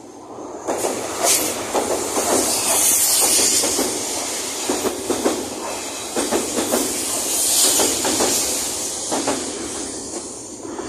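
Electric passenger train passing close by on the adjacent rail bridge track. It sets in suddenly with a rushing hiss and repeated clacks of the wheels over the rail joints, then dies away near the end.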